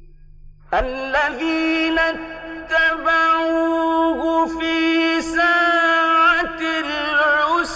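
Male Quran reciter chanting in the ornamented mujawwad style. After a short pause, the voice comes in less than a second in and holds long notes with melismatic turns and wavering pitch.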